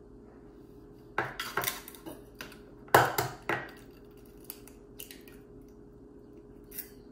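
Eggs being cracked by hand, with sharp knocks and clinks of eggshell against glass bowls: a cluster about a second in, a louder one about three seconds in, then a few light clicks as a shell is pulled apart. A faint steady hum underneath.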